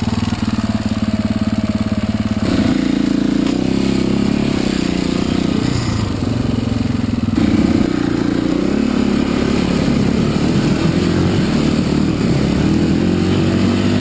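Enduro motorcycle engine running under way. Its pitch steps up about two and a half seconds in and changes again about seven seconds in.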